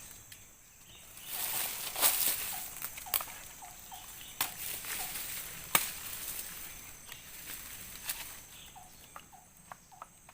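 Scattered sharp clicks and crackles from leaves and twigs being handled or stepped on, with two runs of short, quick, falling chirps from a small animal, one about two and a half seconds in and one near the end. A faint steady high insect drone runs underneath.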